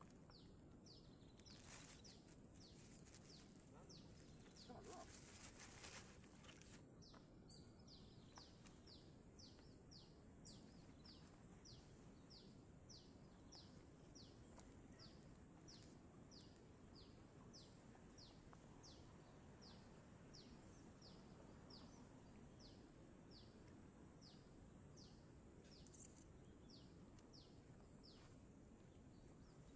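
Faint outdoor ambience: a bird repeating a short, high, falling call about one and a half times a second, over a steady high-pitched drone.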